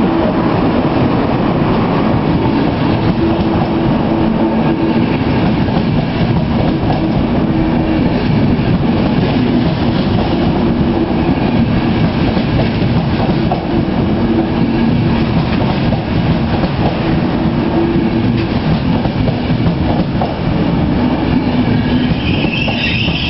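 Intercity passenger train passing close by at speed: a loud, steady rumble of coaches and wheels on the rails. A higher ringing tone comes in near the end.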